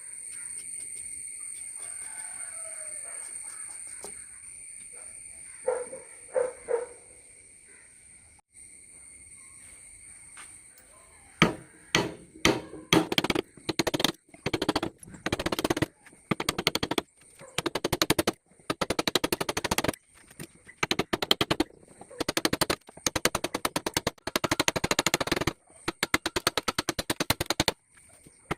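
Chisel being driven into wood in rapid bursts of sharp, fast strikes, starting about a third of the way in. Before that there is only a faint steady whine.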